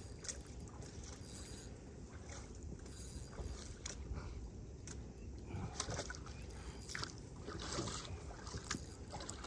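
Fast river current rushing steadily, with scattered short clicks and ticks over it.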